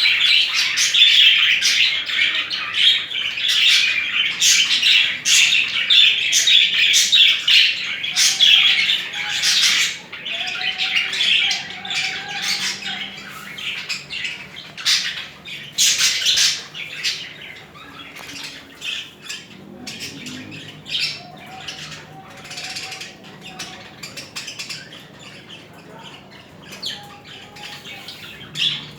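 Budgerigars warbling and chattering, a dense, fast stream of chirps and clicks for about the first ten seconds, then thinner, with scattered chirps.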